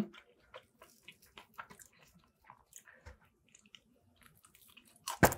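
Battered fried fish pulled apart by hand and bitten into, with faint crackles of the crisp batter and chewing. Near the end comes a louder crunchy bite.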